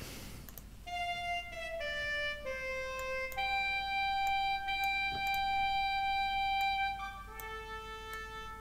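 Sampled saxophone notes from Sibelius 7.5's built-in playback sounding one at a time as notes in the score are selected, each a held single pitch, one lasting about three and a half seconds. Faint mouse clicks come between the notes.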